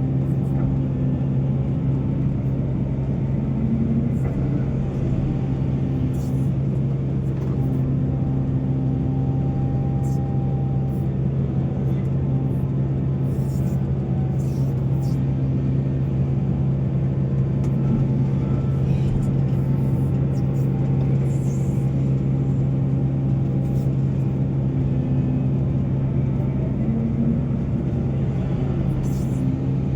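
Heavy diesel engine of mining machinery running at a steady speed, a constant low drone, with a few faint clicks scattered through it.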